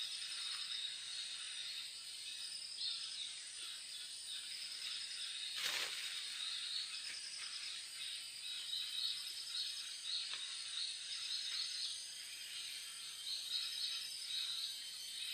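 Outdoor ambience of high, repeated chirping trills over a steady hiss, with a brief rushing sound about six seconds in.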